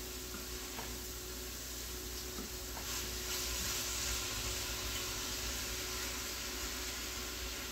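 Steady, faint sizzle of a pan heating on an electric stove, with a few soft wet sounds of hands mixing thin-sliced raw steak, onion and green pepper.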